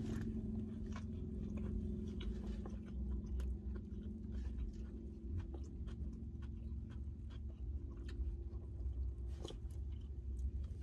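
A person biting into a burger and chewing it close to the microphone, with many small wet mouth clicks over a steady low hum.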